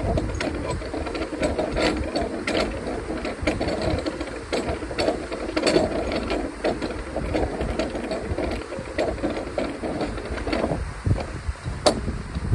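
Canal lock paddle gear being wound with a hand windlass. The pawl clicks over the ratchet teeth in a steady run of clicks, with the rattle of the iron gearing.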